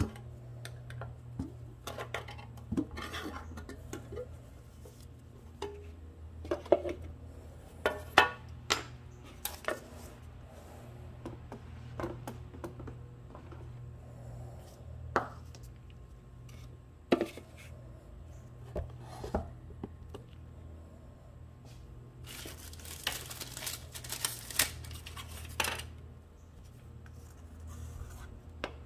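Scattered clicks, taps and knocks of a stir stick and plastic mixing cups against a metal paint can as thick epoxy primer is scooped out and scraped into a cup, with a few seconds of denser scraping rustle about three-quarters of the way in. A low steady hum sits underneath.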